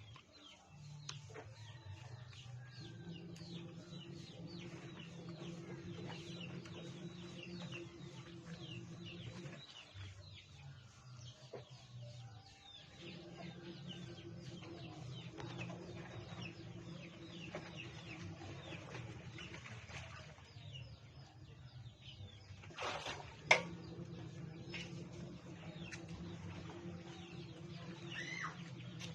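Chickens clucking and chirping over a steady low hum, with one sharp knock about two-thirds of the way through.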